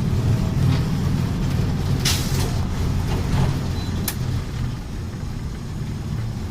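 Volksbus 17.210 OD bus engine running steadily with a low rumble. A burst of compressed-air hiss comes about two seconds in, and a shorter, sharper hiss about four seconds in.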